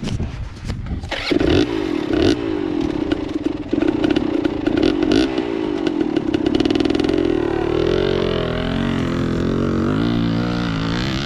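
Dirt bike engine revving and riding off, its pitch rising and falling through the throttle, after a sharp knock at the start; the engine picks up about a second in.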